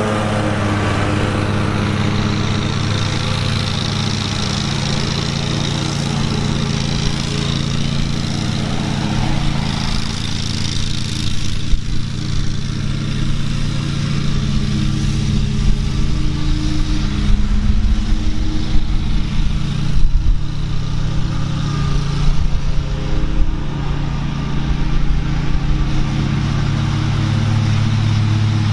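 Husqvarna Z560 commercial zero-turn mower's engine running steadily as the mower cuts. In the second half, uneven low rumbles and jolts come through on top of it.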